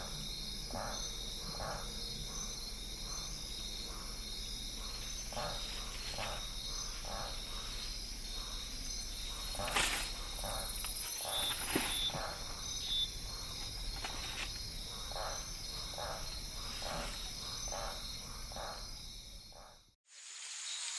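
Tropical rainforest ambience: steady high-pitched insect trilling over a lower call that pulses about twice a second, with a few short bird chirps around the middle. Near the end it fades out briefly and a different ambience recording starts.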